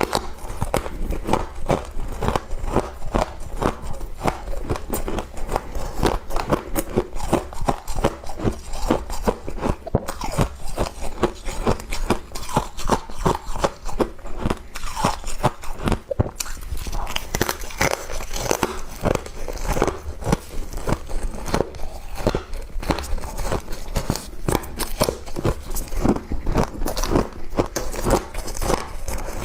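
A person chewing and biting frost, a continuous run of many quick, crisp crunches.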